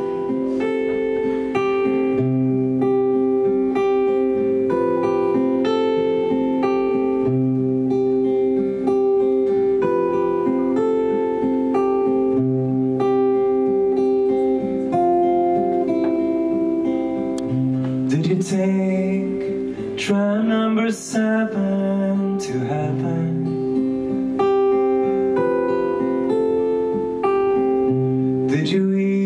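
Acoustic guitar played live in concert, picking a repeating chord pattern with a low bass note coming round about every five seconds.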